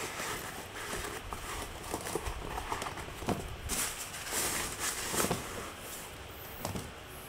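A Nike KD 6 sneaker being handled by hand: irregular rustling of its upper, with scattered soft knocks and clicks as the tongue and laces are pulled and the shoe is moved on its box.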